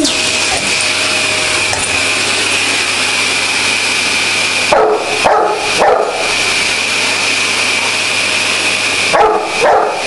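Vacuum cleaner running with a steady whine while a Bordeaux mastiff barks at its tube: three barks in quick succession about halfway through, and two more near the end.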